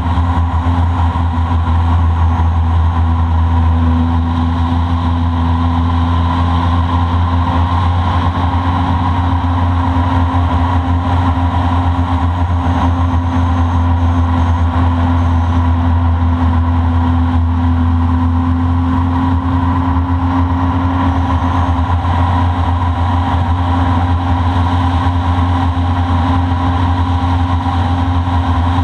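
A boat's engine running steadily under way at constant speed, a loud even drone with a strong low hum.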